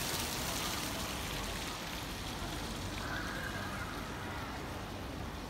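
Steady outdoor background noise: an even hiss whose highest part thins out about two seconds in.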